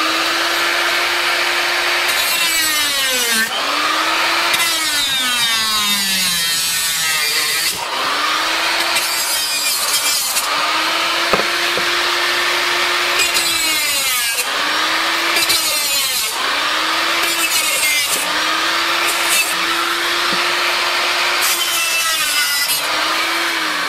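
Chicago Electric 3-inch electric cut-off tool's abrasive wheel cutting through tar-coated metal roofing material: a high motor whine over a harsh grinding hiss. The pitch sags each time the wheel bites into the metal, about a dozen times, and drags down deeply for a couple of seconds near the start.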